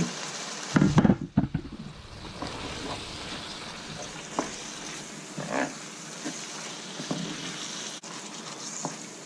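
Lamb mince and potato curry sizzling in a frying pan while a wooden spoon stirs and scrapes through it. There are a few short knocks of the spoon against the pan, the loudest about a second in.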